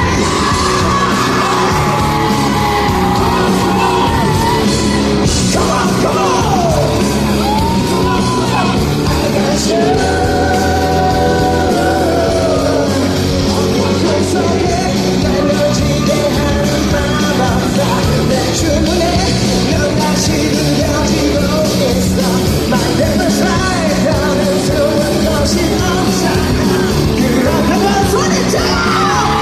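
Live rock band playing in a concert hall, with a high wailing lead line that bends and wavers in pitch over a steady beat.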